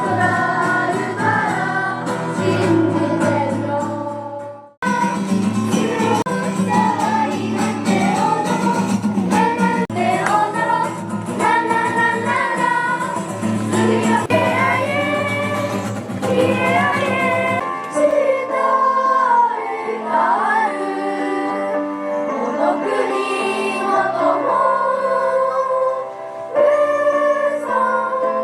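A choir singing, with a brief break about five seconds in and the low notes dropping out around eighteen seconds in.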